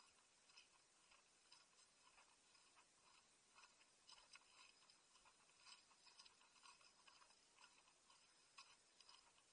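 Near silence: faint footsteps on a stony path, light ticks about twice a second.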